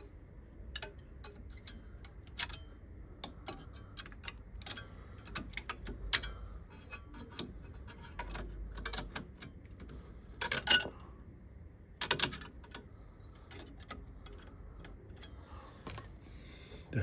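Irregular metallic clicks and taps as a small brake bracket is worked and pressed into place on the brake caliper assembly, with two sharper knocks about two-thirds of the way through.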